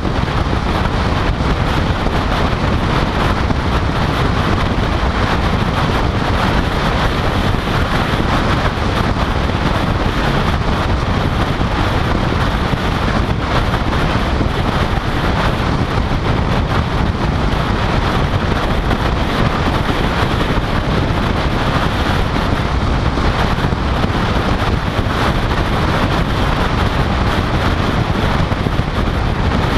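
Steady wind rush buffeting the microphone, mixed with tyre and road noise, from a camera mounted on the outside of a car driving at highway speed. The noise is loud and even throughout, with no engine note standing out.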